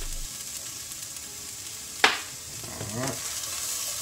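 Kale, carrots and bell pepper sizzling in clarified butter in a stainless-steel sauté pan, with one sharp clank about two seconds in.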